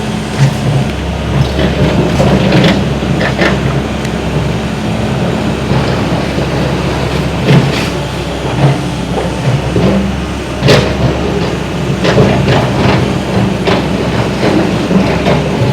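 Diesel engine of a heavy demolition machine with a boom running steadily under load, with scattered clanks and knocks of metal and debris, the loudest about eight and eleven seconds in.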